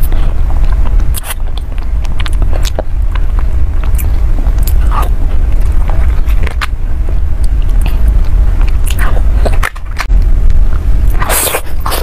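Close-miked eating of soft cream cake: wet chewing and mouth clicks, with a spoon scraping and tapping in a small cake cup. A steady low rumble sits under it, and the sounds bunch up near the end.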